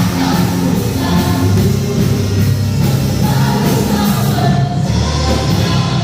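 Live church worship music: a band playing a praise song with a group of voices singing together.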